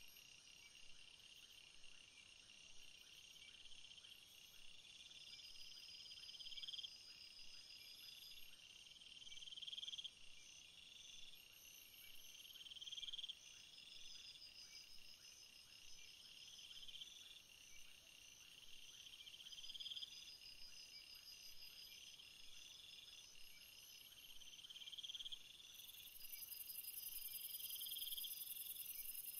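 Faint night-time chorus of crickets and other insects: one call swells and stops about every three seconds over steady higher trilling, and a higher, louder buzz joins near the end.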